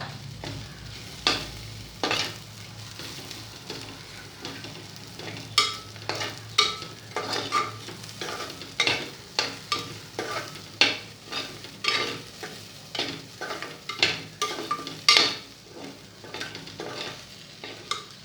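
A spoon scraping and stirring spiced onion and sandge frying in oil in a pan, with a light sizzle underneath. The scraping strokes come a few at a time at first, then about once or twice a second from about five seconds in.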